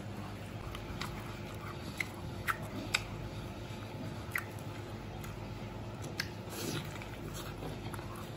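Close mouth sounds of chewing a crispy fried chicken drumstick: wet chewing broken by sharp crunches of the crisp skin, about half a dozen, the loudest two to three seconds in.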